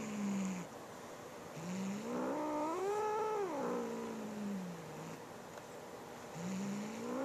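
Domestic cat growling with a feather toy in its mouth. A low growl at the start; about two seconds in, a long growl rises in pitch into a yowl, holds, and sinks back low; another starts near the end and climbs again. It is possessive growling, warning the other cat off the new toy.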